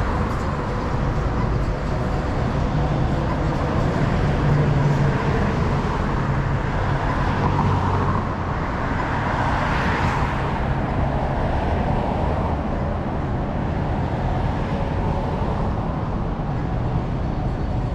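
Road traffic on a city street: a steady hum of cars and engines, swelling as a vehicle passes about ten seconds in.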